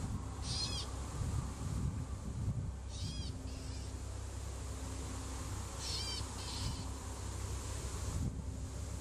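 A bird calling about every three seconds, each call a quick run of high, arching notes, over a low steady rumble.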